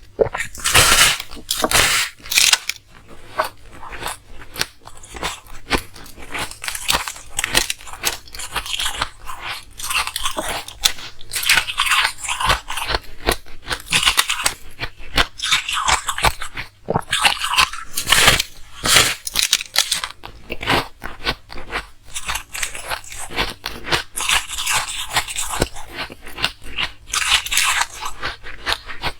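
Ice being bitten and chewed close to the microphone: a steady run of crisp crunches and cracks that come in louder bursts with each bite.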